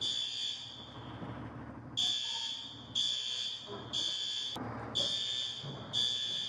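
Building fire alarm sounding: a high-pitched electronic horn pulsing about once a second, each blast lasting most of the second. It is the alarm that was pulled and is still going.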